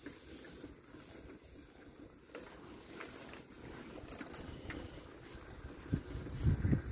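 Footsteps on a paved path while walking with a handheld camera, with low gusts of wind buffeting the microphone near the end.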